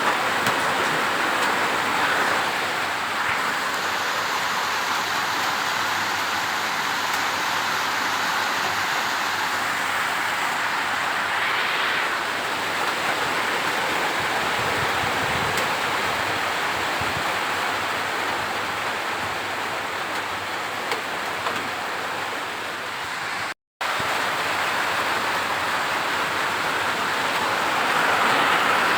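Steady rain falling, an even hiss, cut off for a split second by a brief dropout about three-quarters of the way through.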